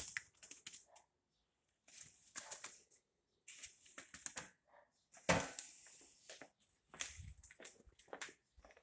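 Broom bristles sweeping in a series of short scratchy strokes with pauses between them, pushing a grounded bird across the floor.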